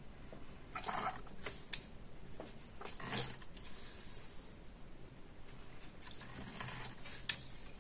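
Hand-squeezed dosing gun with a plastic syringe being pumped, clicking and squelching in a few separate strokes, the loudest about three seconds in, as it sucks coloured water up a plastic hose through a check valve. The squelch goes with the small air leak at the hose joint, which the maker notices right after.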